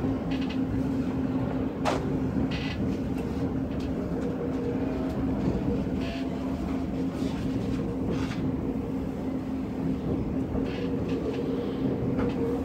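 Interior running noise of an E257 series limited express car under way: a steady low hum with a constant tone over the even rumble of the train, and a few faint clicks and rattles.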